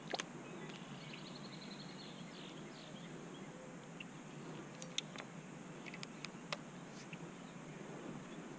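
Quiet outdoor background with faint bird chirps, including a quick high trill about a second in, and a few sharp clicks scattered through the middle and later part.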